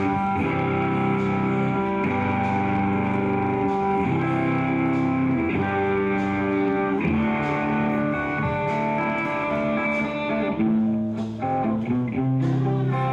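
Stratocaster-style electric guitar played through a combo amplifier, sustained chords ringing out and changing every second or two.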